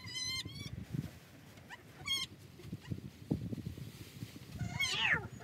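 Newborn Savanna goat kids bleating: three short, high-pitched cries, the last falling in pitch near the end. Straw rustles underneath as it is tossed around the pen.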